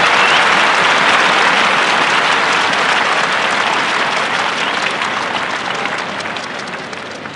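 Large arena crowd applauding, the applause steadily fading and thinning to scattered individual claps near the end.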